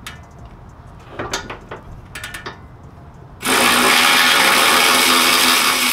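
A few light clicks and knocks of tools being handled, then, about halfway in, a cordless power tool runs steadily for about three seconds, spinning the 17 mm castle nut off the upper ball joint stud.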